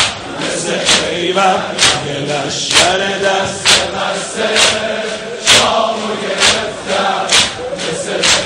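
Crowd of mourners chanting a Persian noha refrain in unison, with sharp, even chest-beating slaps (sineh-zani) about once a second keeping the beat.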